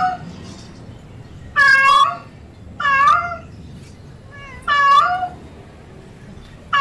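Female domestic cat in heat calling: three loud meows one to two seconds apart, each about half a second long, and a fourth starting right at the end.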